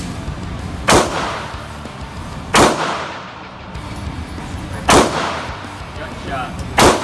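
Four single shots from a semi-automatic pistol, fired at an uneven pace about one and a half to two seconds apart, each with a reverberant tail from the indoor range.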